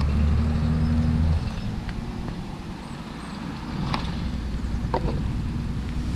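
A low, steady engine drone, loudest for about the first second and a half and then fainter but still running, with a few short light clicks over it.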